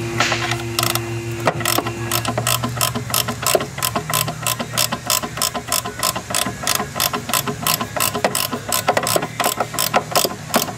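Hand ratchet wrench clicking steadily, about four clicks a second, as a nut is worked off. A steady hum in the background stops about two seconds in.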